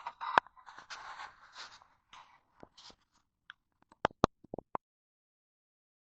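Handling noises in a small room: rustling and scraping, then about eight sharp clicks and knocks, the last ones in quick succession, before the sound stops abruptly about five seconds in.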